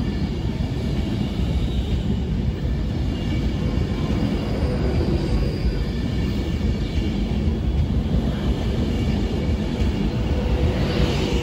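Passenger train running slowly along a platform: a steady low rumble of wheels on rail. A short hiss rises and fades near the end.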